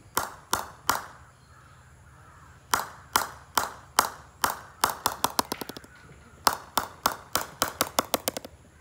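Wooden bat mallet knocking on the face of a DNM-branded English willow cricket bat to check the bat's sound: three sharp knocks, a pause of about two seconds, then steady knocks two to three a second with a quick flurry of rapid taps near the middle.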